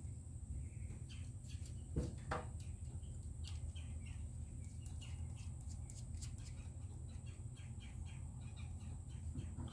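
Small birds chirping in quick short notes over a steady low hum, with a light tap about two seconds in.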